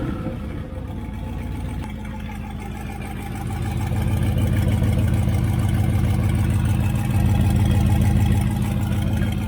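Turbocharged 6.0 L LQ4 V8 of a Chevy Silverado running at a steady idle, getting louder about four seconds in.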